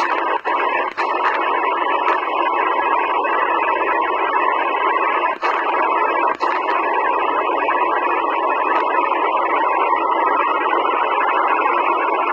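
Shortwave receiver static from a Sihuadon D-808 portable radio in single-sideband mode, a steady hiss with no clear signal while it is tuned across the 17-metre amateur band. The hiss cuts out briefly a few times, near the start and around five to six seconds in, as the frequency is stepped.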